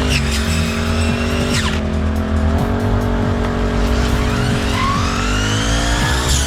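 Small petrol engine of a grass-cutting machine running continuously, its speed dipping and picking up again a few times, with high whining tones rising and falling over it.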